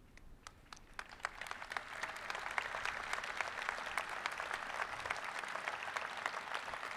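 Audience applause: a few scattered claps at first, building to steady clapping by about two seconds in.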